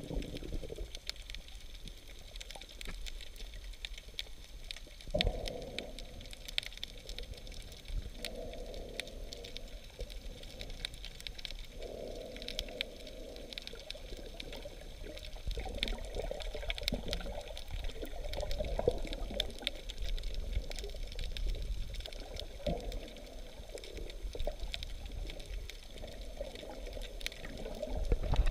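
Muffled underwater sound through a camera's waterproof housing: water sloshing and rushing in uneven swells, with faint scattered crackling clicks. A short louder splash right at the end.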